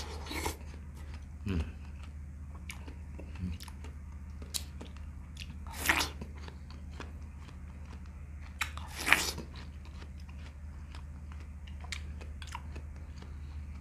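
Biting into a wedge of fresh watermelon and chewing the juicy flesh, with scattered wet crunching bites. The loudest bites come about 6 and 9 seconds in, over a steady low hum.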